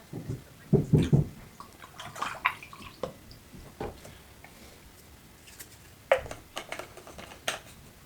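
Kitchen clatter: scattered clinks and knocks of dishes and utensils being handled, with a few dull thumps about a second in.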